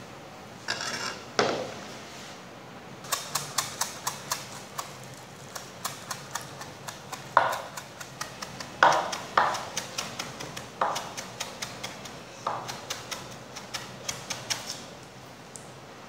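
Chef's knife chopping parsley on a plastic cutting board: runs of quick knocks, several a second, with a few heavier knocks in between. There is a short scrape and knock about a second in.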